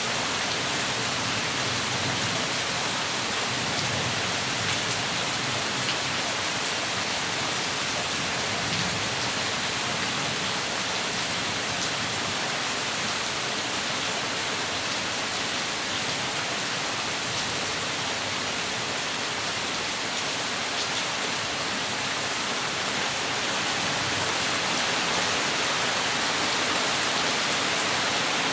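Heavy rain falling steadily, a dense continuous hiss of drops on surfaces with fine pattering.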